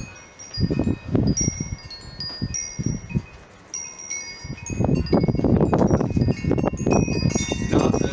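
Hanging wind chimes ringing irregularly, scattered high tinkling notes. Uneven low rumbling noise runs under them and grows louder about halfway through.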